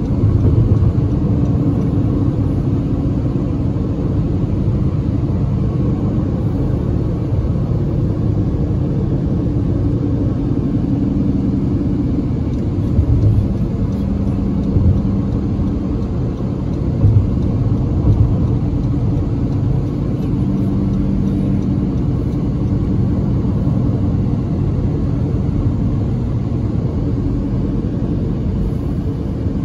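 Car being driven along the road: a steady low rumble of engine and tyre noise.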